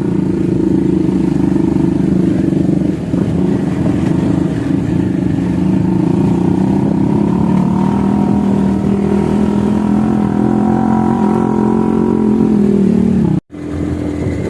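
Motorcycle engine running steadily under way, its pitch drifting slightly with the throttle. The sound drops out abruptly for an instant near the end, then carries on.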